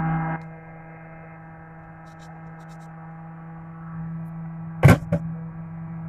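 A steady hum made of one low tone and its overtones, somewhat louder for the first half second, with two sharp knocks close together about five seconds in.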